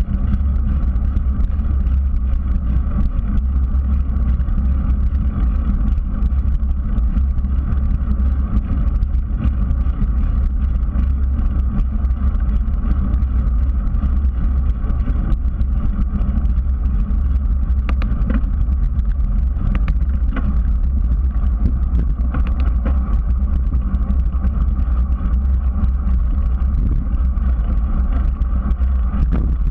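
Bicycle riding on asphalt: a steady, heavy low rumble of wind buffeting the bike-mounted camera's microphone mixed with tyre noise on the pavement. A few light ticks come about two-thirds of the way in.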